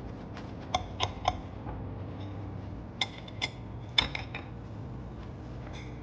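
Hard objects clinking with a short ring: three clinks about a second in, then four or five more around three to four seconds in, over a low steady hum.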